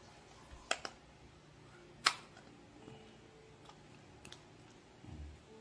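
A few sharp clicks and crackles from a small cream carton being pulled open and squeezed by hands, the loudest about two seconds in, with a soft low thump near the end.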